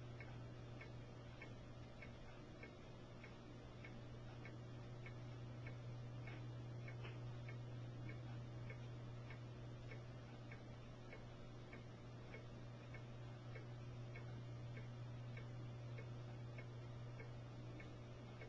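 Faint, even ticking, about two ticks a second, over a steady low hum.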